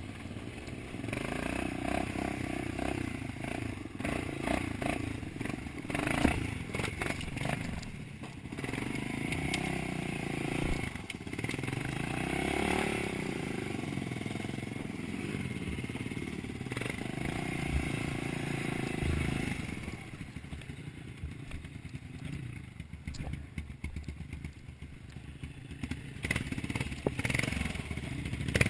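Honda ATV engine running at low speed while branches and brush clatter and scrape against the machine. The engine sound drops lower about twenty seconds in, then picks up again near the end.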